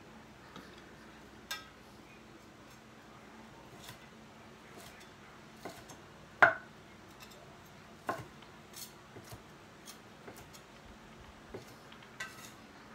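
Meat cleaver chopping cooked pork on a wooden cutting board: scattered sharp knocks and clinks a second or two apart, the loudest about halfway through.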